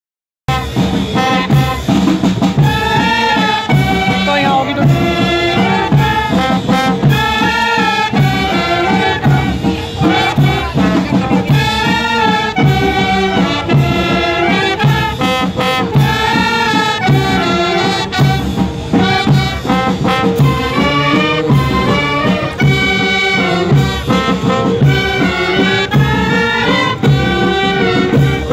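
A band of clarinets and saxophones playing a lively tune together, over a steady beat of about two a second.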